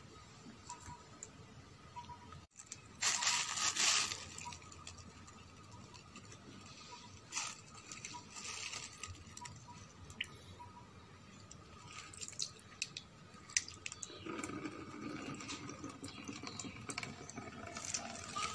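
Wet fermented fruit pulp being strained through a plastic sieve over a bucket: liquid splashing and dripping back into the bucket, with scattered clicks from handling the plastic and a louder burst of noise about three seconds in.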